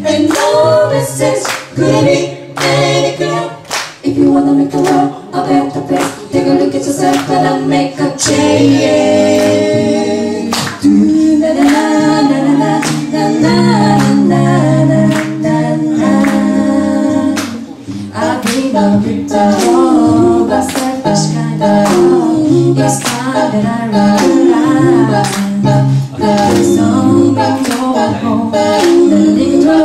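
Mixed four-voice a cappella group singing into microphones in close harmony, with a sustained low bass part and a steady percussive beat running underneath.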